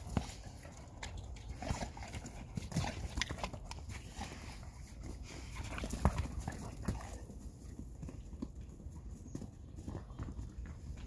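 Dogs' paws thumping and scuffling in deep snow as they scramble over a frisbee: irregular sharp thumps, the loudest about six seconds in.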